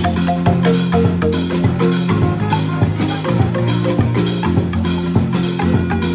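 Marimba band playing live: wooden marimbas in quick, interlocking struck-note patterns over low bass-marimba notes, with drums keeping the beat.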